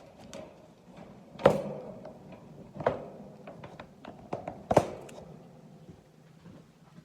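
A guinea pig eating: irregular small crunching clicks of chewing, with three louder knocks about a second and a half apart.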